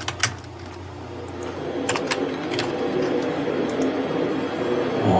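Computer keyboard keystrokes: a few separate key clicks about a quarter second apart right at the start, then a few more between about two and four seconds in. Under them a low, steady sound swells gradually louder.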